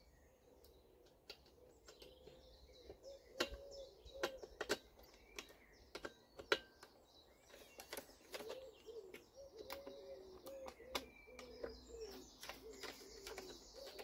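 Faint, scattered metal clicks of a socket bar and spanner working the nuts on the heater's mounting brackets, with birds calling in the background.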